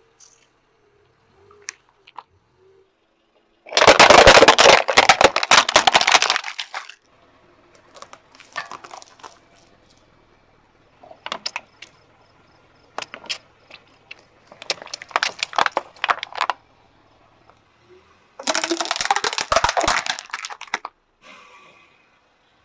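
Car tyre rolling over and crushing plastic bottles and spouted drink pouches, in several bursts of crackling and crunching. The loudest burst comes about four seconds in and lasts about three seconds, with another near the end and shorter crunches in between.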